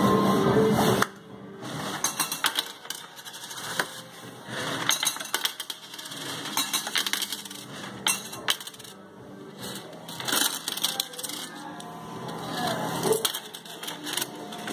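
Bank Raid fruit machine: its electronic tune stops abruptly about a second in, then irregular metallic clicks and clinks follow, with brief chimes from the machine.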